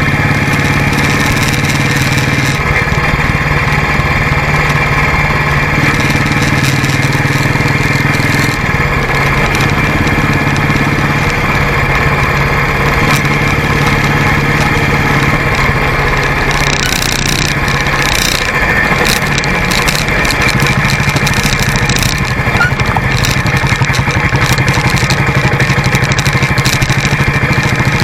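Motorcycle engine running steadily while riding, with road noise; the engine note drops and picks up again a couple of times. In the second half frequent clatter and knocks join in as the bike rides over a rough gravel track.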